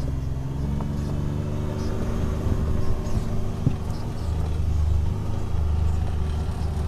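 John Deere Gator XUV 825i's three-cylinder gasoline engine running steadily as the utility vehicle drives along, a low, even drone.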